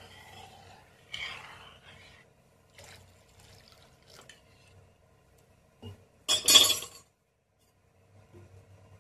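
A steel spoon scrapes and clinks in a kadai of roasted moong dal and water. Then water is poured in from a steel bowl, splashing loudly for under a second about two-thirds of the way through, and cutting off abruptly.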